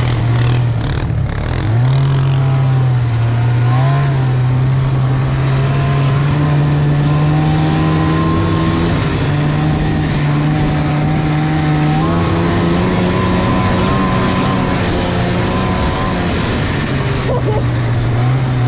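Snowmobile engine running steadily under way, over a continuous rushing noise; its pitch drops briefly near the start and then climbs back, shifting only slightly after that.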